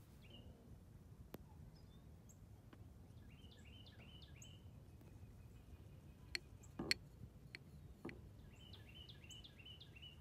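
Quiet background with a small bird giving two quick runs of short, falling chirps, and a few light clicks, the loudest about seven seconds in.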